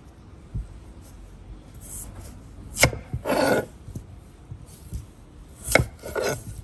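Chef's knife cutting peeled raw potatoes on a wooden cutting board: two sharp knocks of the blade meeting the board, about three seconds apart, each followed by a short rasp of the cut.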